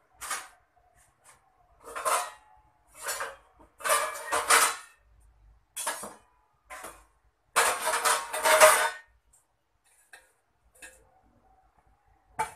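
Steel kitchen utensils clattering and scraping in a run of short bursts for about nine seconds, then a few light clicks and one sharp knock near the end.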